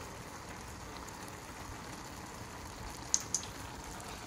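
Steady sizzling hiss of food cooking in pots on the stovetop, with two light clicks a little after three seconds in.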